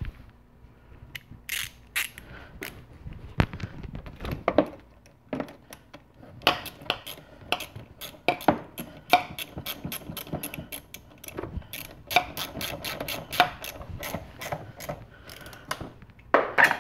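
Ratcheting wrench clicking in quick runs as it tightens the hose clamp that holds the air intake tube on the throttle body.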